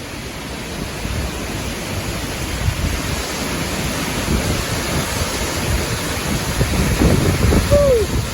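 Strong storm wind gusting and buffeting the microphone, building steadily louder, with a brief falling squeak near the end.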